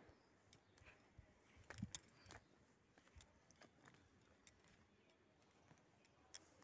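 Near silence with faint scattered clicks and a soft low thump a little under two seconds in.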